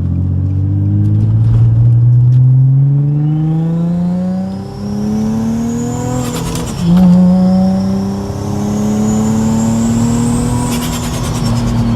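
Rear-mount turbocharged Infiniti G35 V6 making full-throttle pulls. Engine pitch climbs steadily, drops at a gear change about seven seconds in, then climbs again, with a rising turbo whistle over it. The whistle falls away each time the throttle lifts, and each lift brings a quick fluttering chatter.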